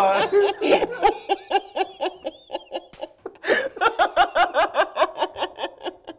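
Men laughing hard in rapid, repeated ha-ha pulses, with a short lull about halfway through before the laughter picks up again.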